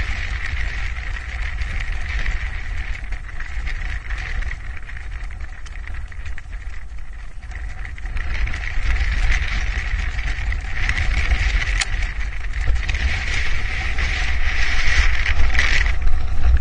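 Wind buffeting the microphone as a steady low rumble, with a steady higher hiss over it that grows louder near the end. A single sharp click about twelve seconds in.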